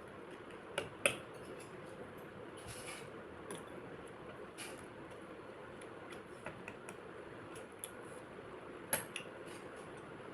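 Light clicks and clinks of tableware over a steady faint hiss while eating, with two sharp clinks about a second in and another near the end.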